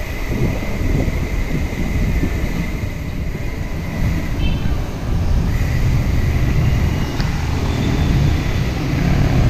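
Wind buffeting the microphone of a camera on a moving bicycle, a steady low rumble mixed with tyre noise on the wet road.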